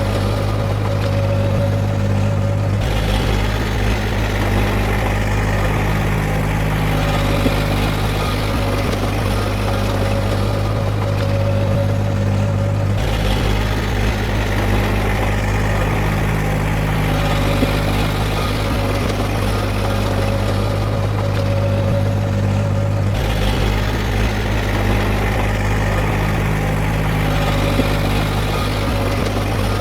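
Heavy earthmoving machinery's diesel engine running steadily with a deep, even hum. The sound shifts abruptly about every ten seconds.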